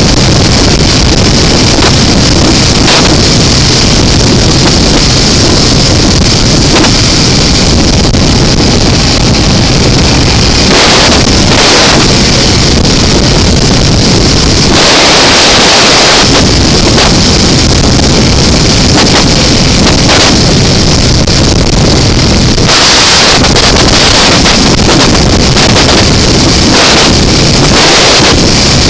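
Wind rushing over the microphone of a 2005 BMW F650CS motorcycle at steady highway speed, with its single-cylinder engine running under it. The rush swells a couple of times, about halfway through and again about two-thirds through.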